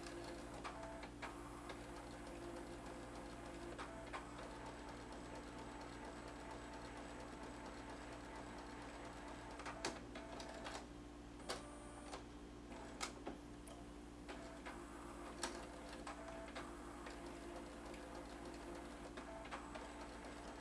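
Canon i560 inkjet printer giving scattered light mechanical clicks and ticks over a faint steady hum, with a handful of sharper clicks between about ten and fifteen seconds in.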